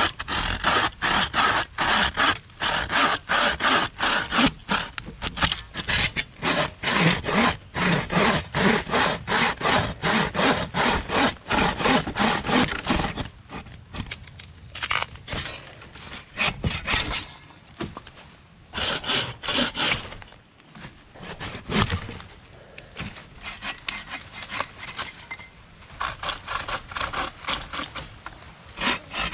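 Bucksaw cutting through a dead log in quick, steady back-and-forth strokes for about the first thirteen seconds. Then comes a break with a few scattered strokes, and lighter strokes resume near the end.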